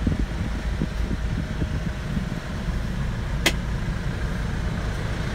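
Hyundai Porter II's D4CB 2.5-litre four-cylinder diesel idling steadily, heard from inside the cab with the air-conditioning running. A single sharp click about three and a half seconds in.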